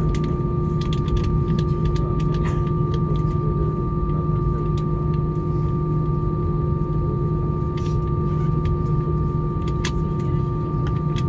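Steady cabin rumble of an Airbus A320-family airliner taxiing with its engines at idle, with a low hum and a thin, steady higher whine running through it.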